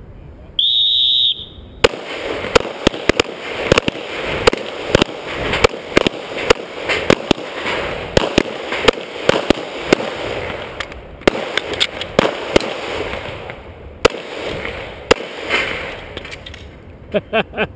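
An electronic shot-timer start beep sounds for about a second, then pistol fire from several shooters on the line, the near shooter's Glock among them. The shots are rapid and irregular, often overlapping, and last until near the end.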